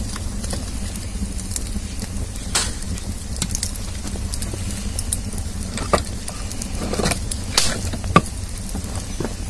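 Wood fire burning in a brick firebox, crackling with scattered sharp pops over a steady low rush. The loudest pop comes about eight seconds in.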